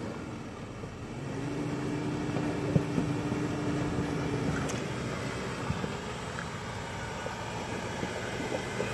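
Ford Ranger ute's engine running off-road, with a steadier, held engine note from about one to five seconds in and a couple of light knocks.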